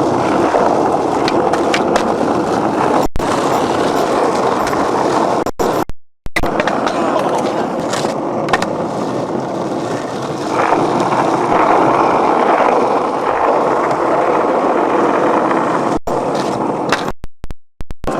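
Skateboard wheels rolling over concrete: a steady grinding rumble with scattered sharp clicks, broken by a few brief, sudden drop-outs.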